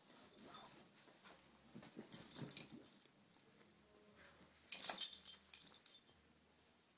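A dog scuffling and tussling with a large round cushion dog bed: irregular rustling and scraping, loudest in a burst about five seconds in.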